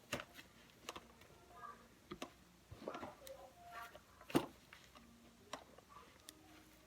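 Scattered small clicks and rustles of hands working a car seat's fabric cover and plastic shell, with one sharper click about four and a half seconds in.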